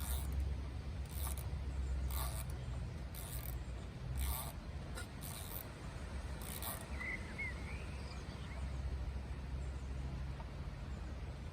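A Torx screwdriver being turned to back out the screws that hold the engine computer over the air filter: short rasping strokes about once a second, irregular, stopping after about seven seconds. A steady low rumble lies underneath.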